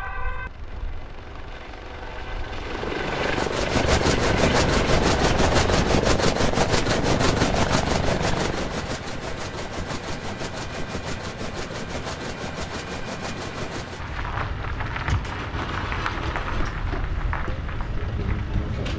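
Helicopter rotor chopping rapidly and evenly as the helicopter comes in to land, growing louder over the first few seconds, then running on more quietly until it cuts off about fourteen seconds in.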